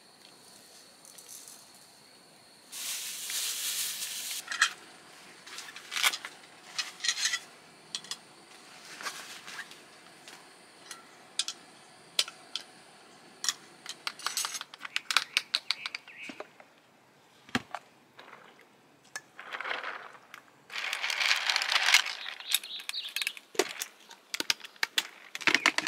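Objects being handled close by: a string of clicks, knocks and clinks, with two longer bursts of rustling and crinkling, one a few seconds in and one about three-quarters of the way through.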